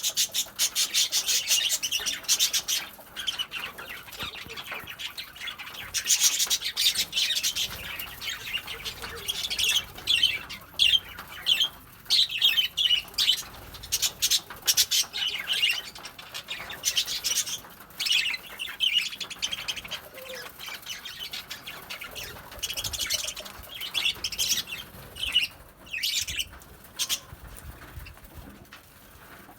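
Lovebirds chattering in rapid, shrill chirps that come in loud bursts and thin out near the end.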